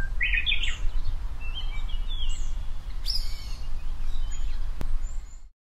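Birds calling, several short chirps and whistles, some falling in pitch, over a loud, uneven low rumble. The sound fades out near the end.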